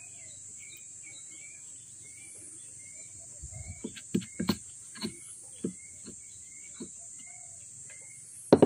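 Steady high insect drone with a short chirping call repeating about twice a second. From about halfway on, a few sharp knocks and taps, the loudest pair near the end.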